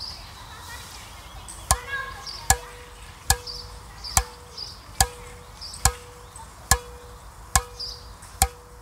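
Tennis racquet string bed with multifilament mains and polyester monofilament crosses, struck by hand nine times at an even beat a little faster than once a second. Each strike is a sharp tap followed by a ringing ping from the strings.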